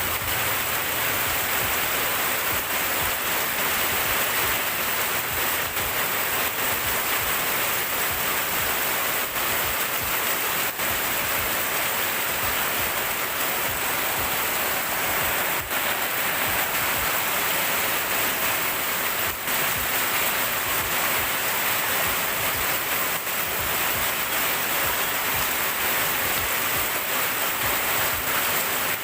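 Rain pouring down steadily, an even unbroken hiss.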